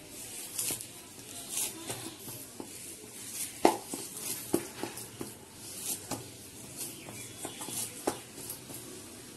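Hands kneading oiled wheat-flour dough with fenugreek leaves in a steel bowl: irregular soft slaps and squelches, with a sharper knock a little over three and a half seconds in.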